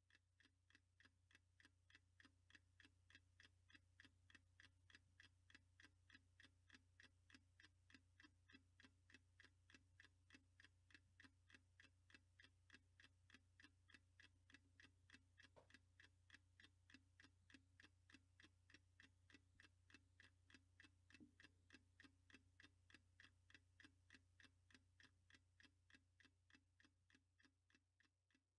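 Faint, steady mechanical ticking, about three ticks a second, over a low hum. It fades in at the start and fades out near the end.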